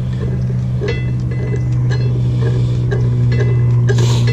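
Light metal clinks of a galvanized shackle and its chain as the shackle pin is screwed in by hand on an anchor's shank, a few scattered clicks, over a loud steady low hum.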